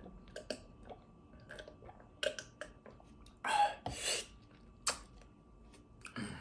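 A person chewing with the mouth: scattered small wet clicks and smacks, with a louder hissing noise about three and a half seconds in.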